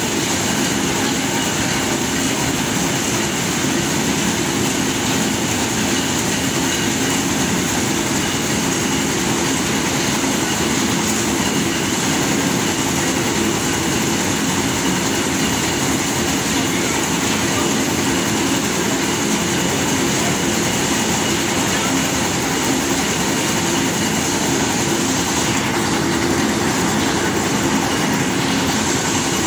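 Corn mill machinery running: the grinder and a wooden shaking sifter grading ground corn into chutes make a loud, steady mechanical din.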